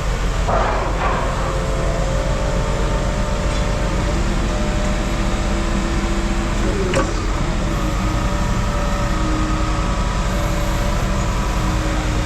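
An engine running steadily, a low drone with a steady whine above it, and a sharp knock about seven seconds in.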